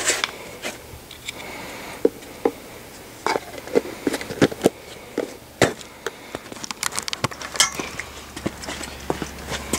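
Hand tools being handled and put away: irregular clicks, knocks and clinks, a few of them sharper.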